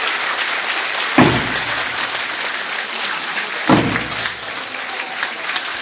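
Audience applauding steadily, with two low drum beats about two and a half seconds apart.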